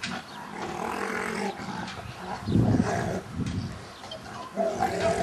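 A Rottweiler and a Staffordshire bull terrier growling at each other in rough play. The growls come in rough bursts, loudest about halfway through and again near the end.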